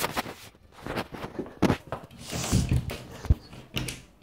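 Handling noise from a phone being picked up and carried: irregular knocks and rubbing against its microphone.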